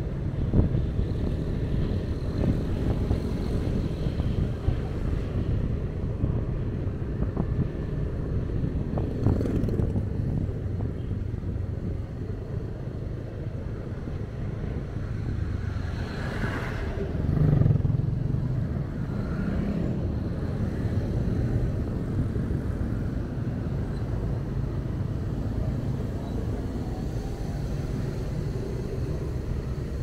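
City traffic and road noise from a ride through town streets: a steady rumble of engines and tyres, with a louder vehicle passing a little past halfway through.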